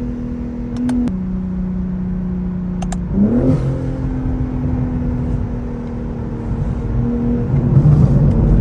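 Stock BMW G80 M3's S58 twin-turbo inline-six exhaust, its note held steady, stepping down in pitch about a second in, then rising quickly and holding again about three seconds in. A few sharp pops come through the exhaust, one just before the pitch drop and one just before the rise.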